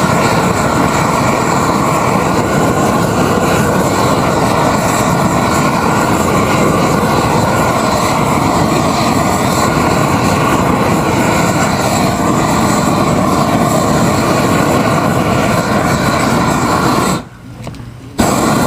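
Propane roofing torch burning with a steady, loud rush, heating modified bitumen roll roofing. It cuts off near the end, comes back for about a second, then cuts off again.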